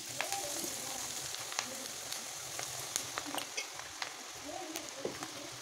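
Cabbage pakoda batter dropped by hand into hot oil and deep-frying, the oil sizzling steadily with scattered crackles and pops.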